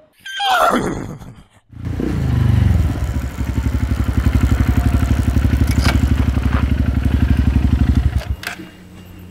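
A whinny-like cry falling in pitch in the first second or so. Then the Honda CRF150L's single-cylinder engine starts about two seconds in and idles with a fast, even pulse, falling much quieter about eight seconds in.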